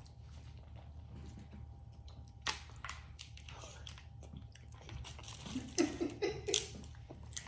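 Seafood being eaten: chewing with scattered crunches and clicks, which come quicker and louder near the end. A short low voice sound comes in among them.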